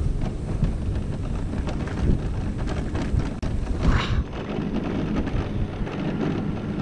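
Electric mobility scooter driving along an asphalt road, its motor and tyres running steadily under heavy wind rumble on the microphone. A short higher-pitched sound rises briefly just before four seconds in.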